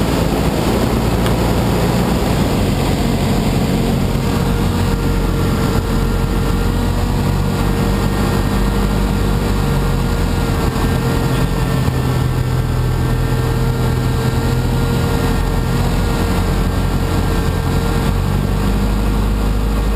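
Auster J5F light aircraft's piston engine and propeller running steadily, heard from inside the cockpit, with wind noise, on the approach to land.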